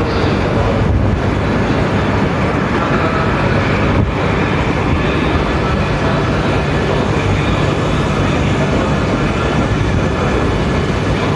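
Tsubasa Shinkansen train coupled with a Yamabiko set pulling out of the platform, its cars rolling past close by with a steady, loud running noise.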